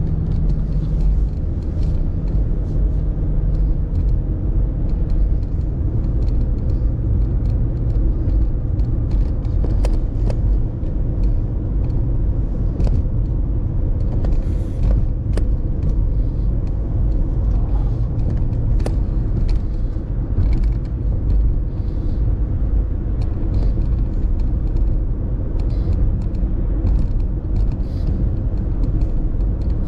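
A car driving along a road: a steady low rumble of engine and tyre noise, with a few faint clicks.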